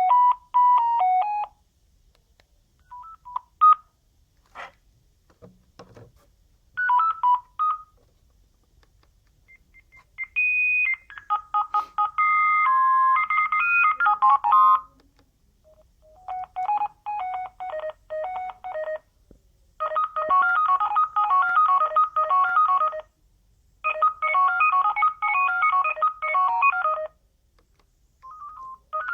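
Sagem myX-1 Trio mobile phone playing its ringtones through its small speaker: a string of short beeping melodies, one note at a time, each tune starting after a short pause. There are a few brief clicks in a gap partway through.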